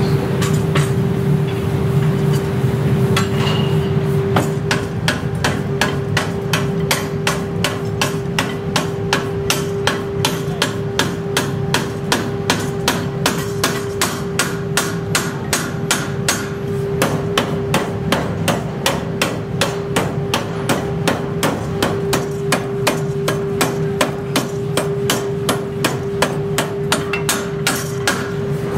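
Belt-driven mechanical power hammer pounding a red-hot steel blank in a die: rapid, evenly spaced metal-on-metal blows, about three a second, regular from about four seconds in, over the steady hum of the running machine.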